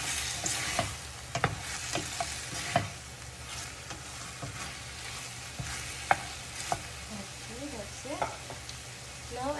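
Chicken strips sizzling in oil in a stainless steel pan while a plastic spoon stirs them, with several sharp taps and scrapes of the spoon against the pan.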